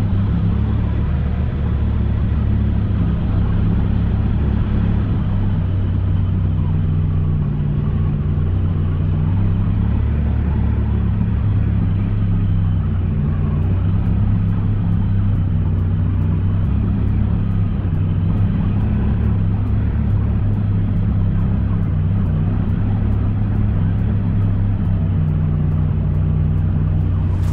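Twin-cylinder side-by-side UTV engine running at a steady speed: a constant low drone whose pitch shifts only slightly.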